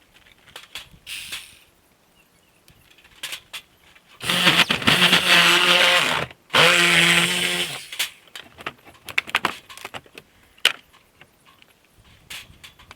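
A power saw run in two bursts, about two seconds and then about a second and a half, cutting through old wall framing during demolition. Scattered knocks and clatter come before and after it.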